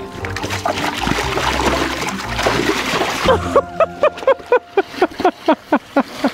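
Water splashing and sloshing in a plastic kiddie pool as a miniature pig moves about in it. About halfway through, a quick, regular run of short sounds begins, about four a second, each falling in pitch.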